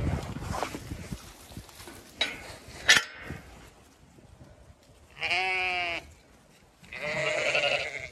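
Zwartbles ewes bleating: two quavering bleats about a second long each, the first about five seconds in and the second about seven seconds in. Before them, rustling and two sharp knocks near two and three seconds in, the second knock the loudest sound.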